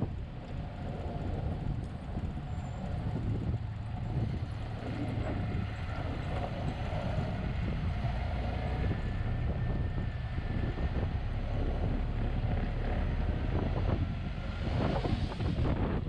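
1929 Ford Model A pickup's four-cylinder engine running steadily under way, with wind noise in the drafty cab. A louder rush swells near the end.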